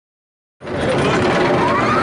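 Wooden roller coaster train running on its track, with wind rushing over the ride-mounted camera's microphone: a steady loud rush that starts abruptly about half a second in.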